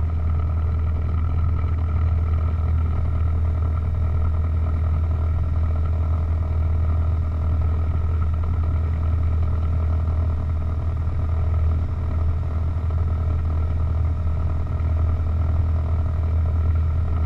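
Piper PA-28 Cherokee's engine and propeller running steadily at low taxi power, a constant drone heard inside the cockpit. The student thinks it sounds a little rough; the instructor puts any difference down to the crosswind hitting the propeller.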